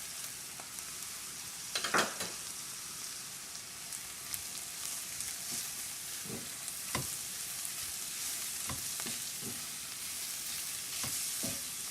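Chopped vegetables (carrots, beans and green peas) sizzling in olive oil in a pan, with a spoon scraping and knocking against the pan as they are stirred. A louder clatter comes about two seconds in.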